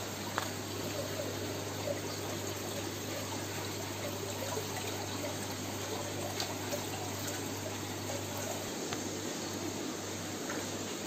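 Steady running, trickling water from the aquarium setup, with a low steady hum and a few faint clicks.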